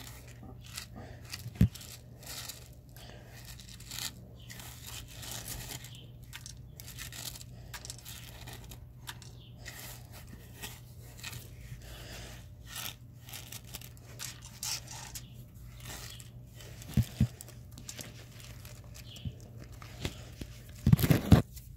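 Handling noise from a phone's microphone being rubbed and brushed while the lens is covered: irregular crackling rustles, with sharp knocks about a second and a half in, around seventeen seconds in, and a loud cluster near the end.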